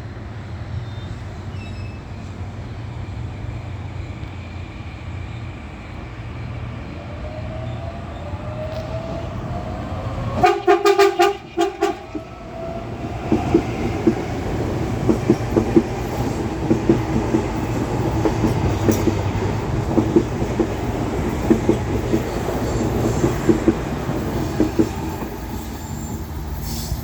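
Series 7000 electric multiple-unit train pulling away: its traction motors whine, rising in pitch as it gathers speed. About ten seconds in the horn sounds for a second and a half, the loudest sound, then the wheels clatter rhythmically over the rail joints as the train passes.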